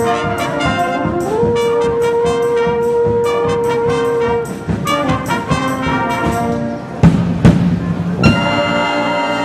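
Wind band playing with a euphonium solo. The euphonium holds a long note over a steady ticking accompaniment of about four short strokes a second, and a few loud, low accented notes follow near the end.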